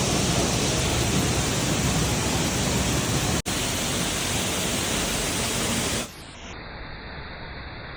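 Waterfall rushing: a loud, steady wash of falling water. It breaks off for an instant about three and a half seconds in, and near the end it drops to a quieter, duller rush.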